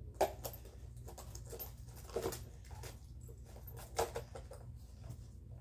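Small knocks, clicks and rustles of toys being handled by hand, the sharpest about a quarter second in, around two seconds in and at four seconds, over a steady low hum.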